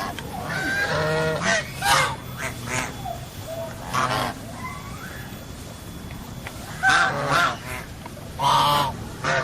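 Birds honking: a cluster of loud pitched calls in the first two seconds, a single call about four seconds in, and more calls near the end.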